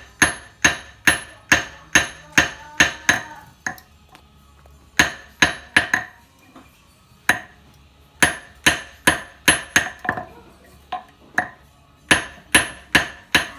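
Hand hammer striking a small piece of silver on a small iron anvil as a silversmith shapes it. Sharp metallic taps with a brief ring come in runs of about two to three a second, broken by short pauses.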